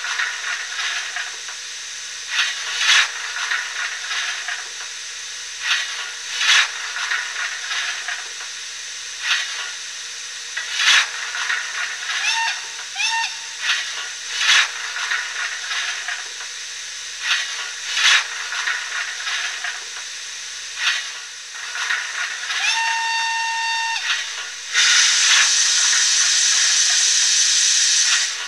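Steam-locomotive sound effects of an H0-scale model of the Portuguese CP 110/117 steam engine: a steady steam hiss with short sharp sounds every couple of seconds. Two brief whistle toots come about twelve seconds in, a longer whistle about twenty-three seconds in, and a louder steady rush of steam near the end.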